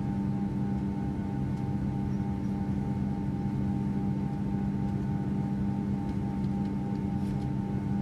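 Airplane engines heard from inside the cabin, running steadily: a low rumble under a constant hum of several tones.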